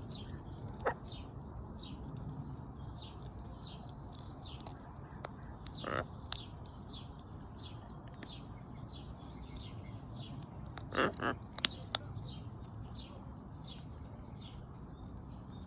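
Birds chirping, with short chirps repeating about two or three times a second and a few short louder calls about a second, six seconds and eleven seconds in. A few sharp clicks sound between the calls.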